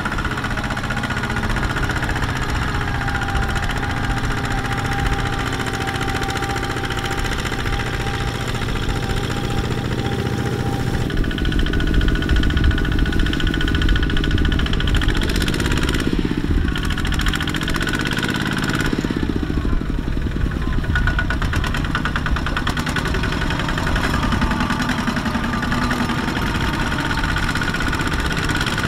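Kubota two-wheel hand tractor's single-cylinder diesel engine running under load as it drags a loaded trailer through mud, its pitch rising and falling now and then.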